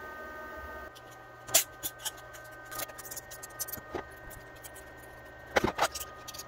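Sharp clicks and taps of small hard-plastic 3D-printed parts being handled, with one loud click about a second and a half in and a quick cluster of clicks near the end, over a faint steady hum.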